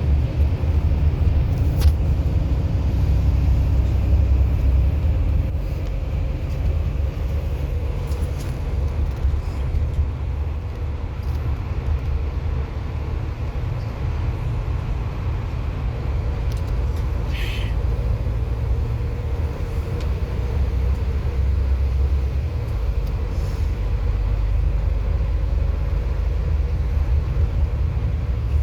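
Bus running along the road: a steady low rumble of engine and tyres with a faint hum, and one short high squeak about two-thirds of the way through.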